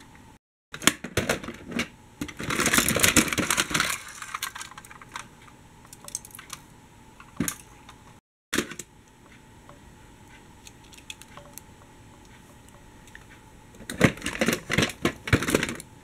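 Toy trams and buses clattering and clicking against each other in a plastic storage box as a hand rummages through them, in bursts of rattling: a long one from about a second in, a couple of single knocks near the middle, and another rattle near the end.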